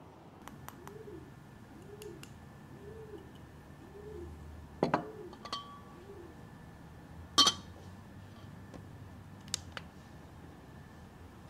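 A dove cooing, a series of six low notes that rise and fall, about two every three seconds. Over it a ceramic pour-over dripper and glass server clink sharply twice near the middle, with a few lighter taps.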